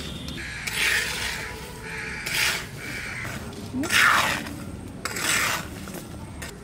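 Metal spatula scraping across a black iron pan as jackfruit seeds are stirred while dry-roasting, the seeds shifting with each stroke. About five rasping strokes come roughly a second apart, the loudest about four seconds in.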